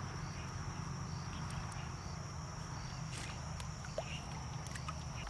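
Insects trilling steadily in a high, even tone over a low rumble, with a few faint clicks.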